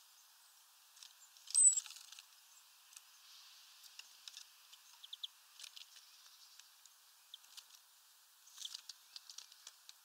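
Small birds feeding at a tray feeder: scattered light clicks and taps of beaks and feet on sunflower seeds and the tray, in irregular clusters. About one and a half seconds in, a short high bird chirp marks the loudest moment.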